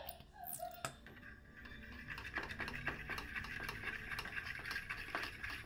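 Crackling and sizzling from a charcoal fire pan, with dense fine pops and ticks setting in about a second and a half in. A brief whine and a sharp click come near the start.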